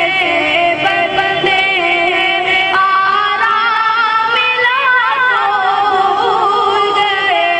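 A boy's solo voice singing an Urdu naat, a devotional poem in praise of the Prophet, into a microphone, with long held notes and a wavering, ornamented run about two-thirds of the way through.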